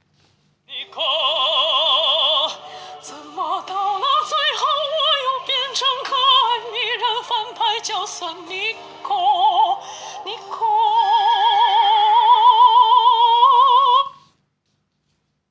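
Song passage of high, operatic wordless singing with a strong, even vibrato, held on long notes. It stops abruptly about a second before the end.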